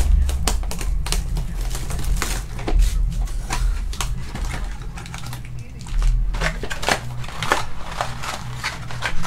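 Trading cards and packs being handled and flipped through, making a scattered run of quick clicks and taps over a steady low hum.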